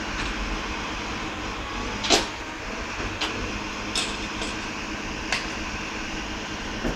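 Heil Big Bite rear-loader bin lorry running steadily while it empties a skip into its hopper, with about five sharp clangs and knocks from the skip and waste, the loudest about two seconds in.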